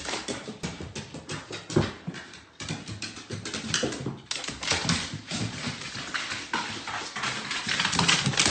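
A stocky dog going down hardwood stairs, its claws clicking and paws knocking irregularly on the wooden steps.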